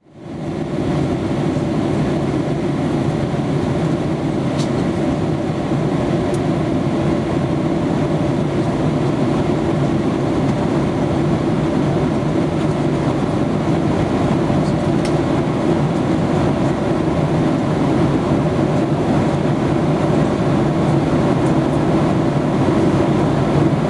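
Steady rumble of engine and airflow noise inside a passenger jet's cabin at cruise altitude, fading in over the first second and then holding even.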